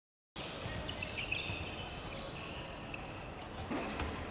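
Basketball being dribbled on a hardwood court, with thumps of the ball, short sneaker squeaks and voices echoing in the gym. It starts after a brief silent gap.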